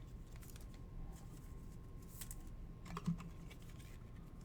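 Faint scattered light clicks and taps, with one soft knock about three seconds in.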